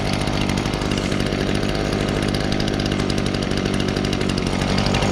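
Stihl BG55 leaf blower's 27cc two-stroke engine running steadily, warming up just after a cold start.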